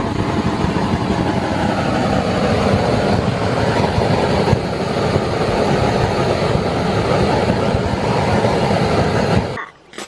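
Handheld butane torch burning with a steady loud hiss as its flame is played over beef ribs on a charcoal grill; it shuts off abruptly near the end.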